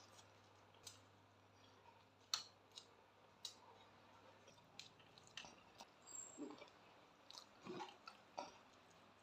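Faint chewing and mouth sounds of someone eating, with scattered soft clicks and smacks at an irregular pace.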